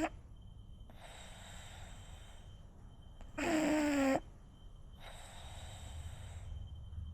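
French bulldog snoring in its sleep: one loud, pitched snore lasting nearly a second about halfway through, between softer, hissing breaths, with the next snore starting right at the end.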